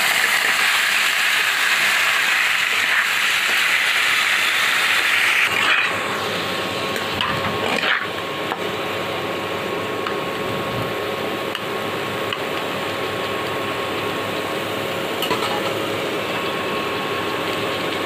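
Potato and raw papaya pieces sizzling in hot oil in a kadai, turned with a metal spatula that clicks and scrapes against the pan a few times. The sizzle is loudest for about the first six seconds, then settles a little quieter.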